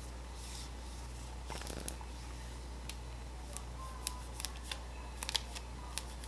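Scattered faint sharp clicks and taps, most of them in the second half, over a steady low hum.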